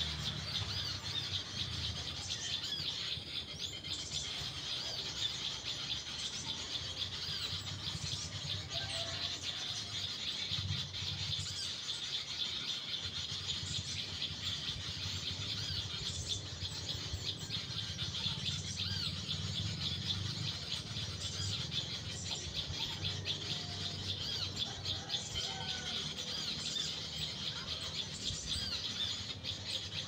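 Small birds chirping and twittering continuously in quick, high, overlapping calls.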